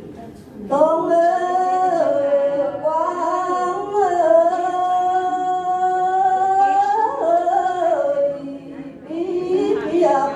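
A woman singing a Tày lượn folk song solo, in long drawn-out held notes that bend slowly up and down. The voice comes in about a second in, breaks for a breath near the end, and comes back.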